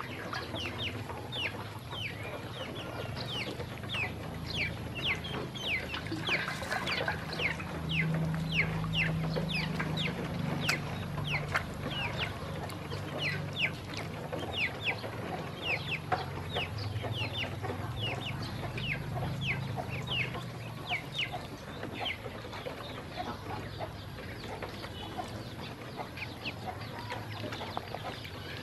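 A brood of domestic ducklings peeping nonstop: many short, high chirps that drop in pitch, overlapping at several a second.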